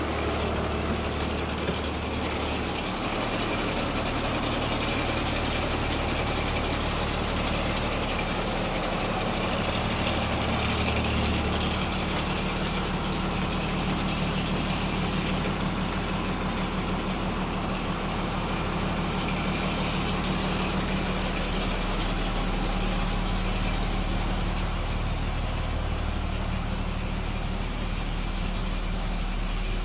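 Front-mounted engine of a 1999 Blue Bird TC2000 school bus running steadily, its low hum shifting in pitch a few times.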